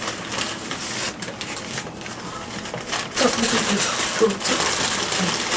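Indistinct voices over a haze of rustling and clicking noise. The voices get louder about three seconds in.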